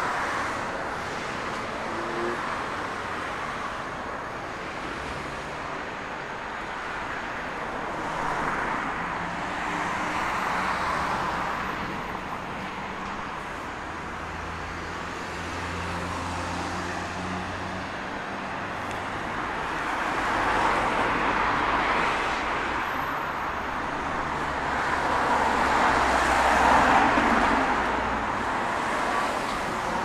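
Road traffic: cars and other motor vehicles passing one after another, with engine hum. The sound swells with each pass, loudest about two-thirds of the way through and again near the end.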